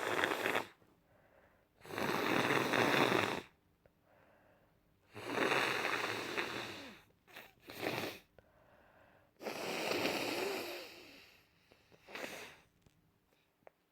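A person congested with a cold blowing their nose hard into a tissue: three long snotty blows of a second and a half to two seconds each, with shorter blows between and one near the end.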